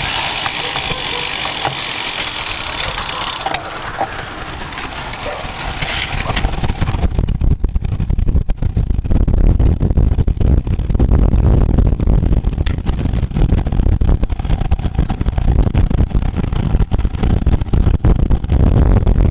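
Wind buffeting the microphone at racing speed, heard as a hiss for the first few seconds and then, from about seven seconds in, a loud, gusty low rumble along with road noise.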